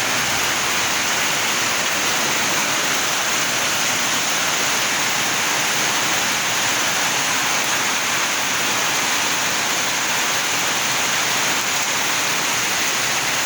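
Heavy rain pouring down in a steady, dense hiss that stays level throughout.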